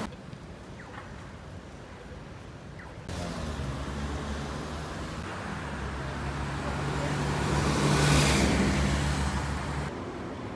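Road traffic. About three seconds in a vehicle's low, steady engine drone comes in, building as it passes close and loudest about eight seconds in, with a rush of tyre and air noise at the peak.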